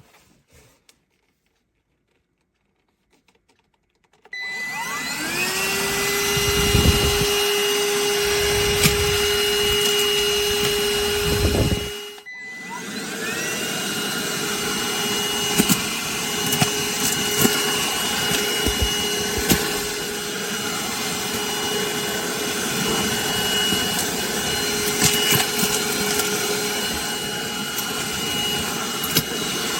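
Cordless handheld vacuum cleaner switched on about four seconds in, its motor spinning up to a steady whine. It cuts out briefly around twelve seconds in, spins up again and runs steadily, with occasional small clicks.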